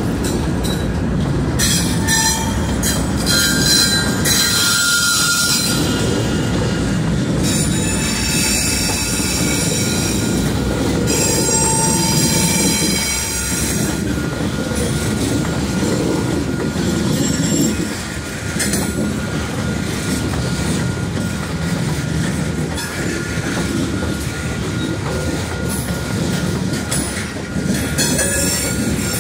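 Norfolk Southern freight train rolling past: a steady rumble of steel wheels on the rails as the diesel locomotives and then covered hopper cars go by. High wheel-flange squeals come and go several times, mostly in the first half and again near the end.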